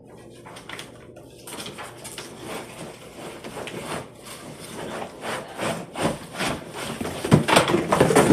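Rustling and knocking of packaging and plastic vacuum parts being handled, irregular, growing louder toward the end.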